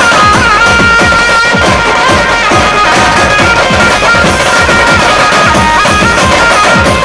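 Pad band playing loud procession music: many large hand-carried marching drums beating a fast, dense rhythm under a held lead melody that steps from note to note.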